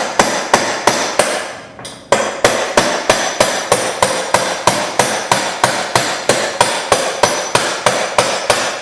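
Hammer blows on a 3/16 drift pin, driving the retaining pin out of the piston head on the CIRT impactor shaft. The steel strikes ring at a steady three to four a second, with a short pause a little over a second in.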